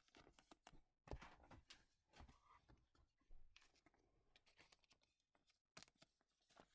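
Near silence, with faint soft rustles and small clicks of trading cards being handled and slid past one another, about once a second.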